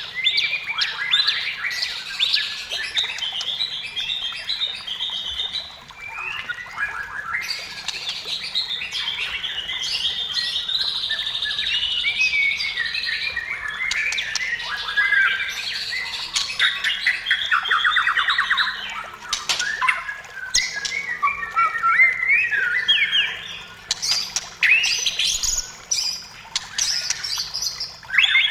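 White-rumped shama (murai batu) singing nonstop: a long, varied song of whistled phrases, gliding notes, rapid trills and rattling clicks.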